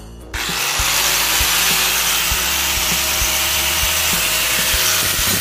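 A power tool grinding rust off the steel blade of an old bolo, a steady, loud grinding noise that starts abruptly about a third of a second in.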